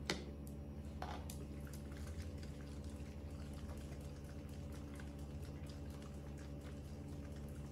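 Quiet steady hum with a few light clicks and taps from small plastic baby bottles being handled, one of them set down on a tile floor.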